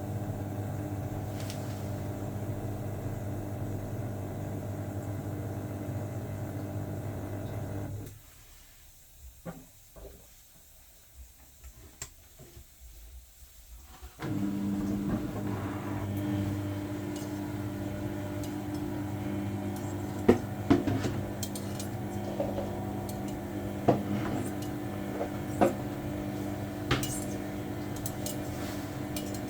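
Washing machine running with a steady hum. It stops about eight seconds in, stays quiet for about six seconds apart from a few clicks, then starts up again. Sharp clicks and knocks come several times in the second half.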